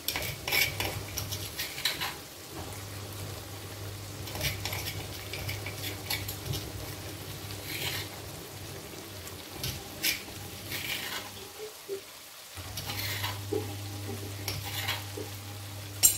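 Spice paste for beef rendang sizzling and frying in oil in a carbon-steel wok; the paste has cooked down far enough for its oil to separate. Short scrapes and clinks of a utensil come every second or two over a steady low hum.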